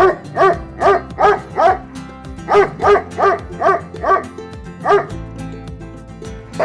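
Dog barking in quick runs of short barks, about two to three a second: five barks, a brief pause, then six more, which stop about five seconds in. Steady background music plays under them.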